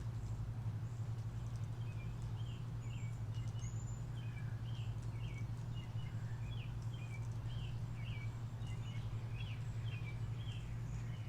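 Songbirds chirping: a quick run of short chirps starts about two seconds in and keeps going, with a couple of thin high whistles early on, over a steady low hum.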